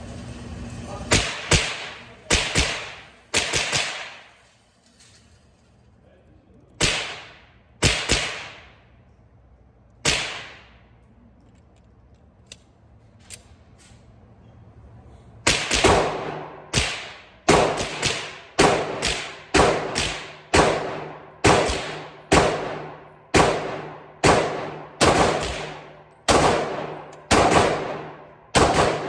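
Glock 23 pistol firing. A quick cluster of about six shots comes first, then three single shots a second or two apart, and a few light clicks. From about halfway on comes a steady string of shots, roughly one every 0.7 seconds, each with a ringing echo.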